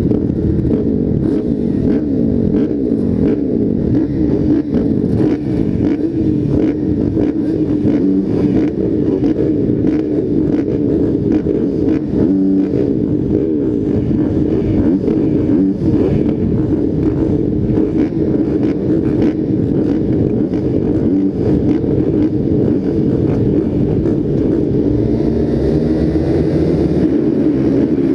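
Several motocross bikes' engines racing together, revving up and down continuously, their pitches rising, falling and crossing over one another.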